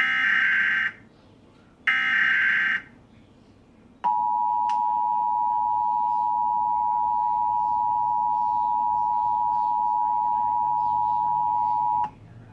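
Emergency Alert System test tones: the last two bursts of the SAME digital header, each a buzzing data burst about a second long, then, about four seconds in, the EAS attention signal, a steady two-tone 853 and 960 Hz chord held for about eight seconds before it cuts off.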